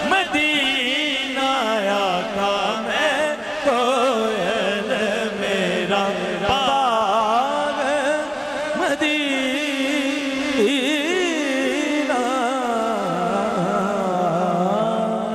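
A man singing a naat into a microphone, a long ornamented melody with wavering, sliding notes over a steady held drone.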